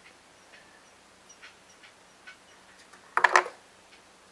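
Faint clicks and taps of hand work on a leaf blower, with one short squeaky creak about three seconds in.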